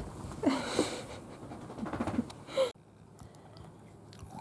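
Maltese dog snoring in its sleep: two noisy snoring breaths a little over a second apart, then the sound cuts off abruptly about two-thirds of the way through.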